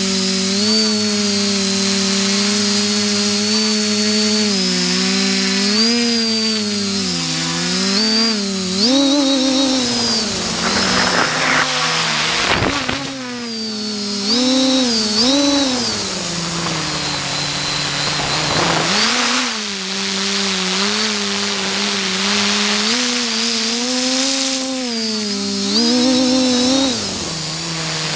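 Electric motors and propellers of a multirotor drone, heard from the GoPro mounted on it: a steady buzzing whine whose pitch rises and falls again and again as the throttle changes. It dips briefly in the middle.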